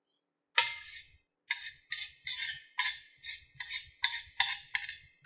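A metal spoon scraping and stirring around a stainless-steel frying pan of hot oil, in short strokes about two or three a second. It starts with one sharp clank of metal on metal about half a second in, the loudest sound.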